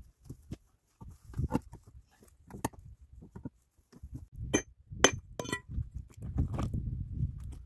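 Loose limestone rocks handled by hand, knocking and scraping against each other, with a few sharp clacks of stone on stone about halfway through and a stretch of grinding, shifting rubble near the end.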